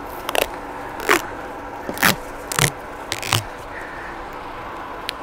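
Tape being pulled off a roll in several short, sharp rips, about one every half second to a second, as a cap is taped over the gas tank's opening.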